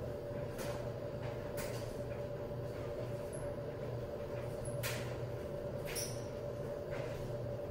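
Hands handling a cardboard snack carton and its plastic straw, giving a few scattered light ticks and rustles over a steady low hum.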